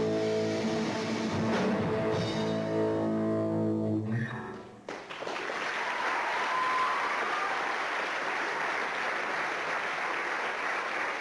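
A school rock band with electric guitars and bowed strings holds its final chord, which cuts off about four and a half seconds in, followed by steady applause from the audience.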